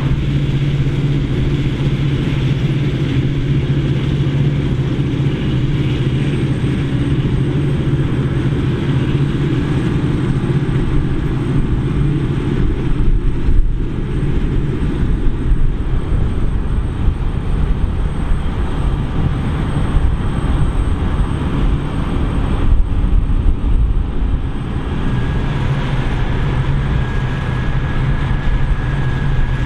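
Claas Lexion 770 combine harvester running steadily under harvest load, a loud continuous low engine hum with machine noise.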